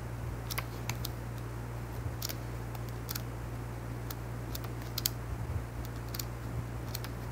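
Pages of a paper pad being turned one by one: scattered light paper ticks and rustles, over a steady low hum.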